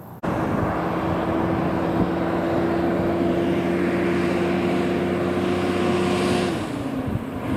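Diesel engine of a Kenworth cab-over log truck pulling a loaded trailer, a steady drone with a clear engine tone. About six and a half seconds in the engine note drops and dips briefly, then picks up again at a lower pitch.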